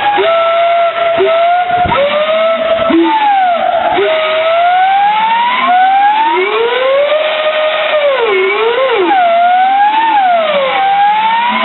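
Homemade steam whistle blowing steadily over a hiss of steam while its adjustable piston is moved, so the pitch slides up and down in long swoops. From about halfway in, a second, lower tone sounds with the first, rising and falling on its own.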